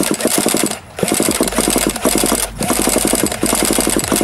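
Handheld electric starter spinning over the HPI Savage's nitro engine in an attempt to start it. It comes in three bursts of fast, even pulses from the engine being turned over, with short breaks about a second in and past the middle.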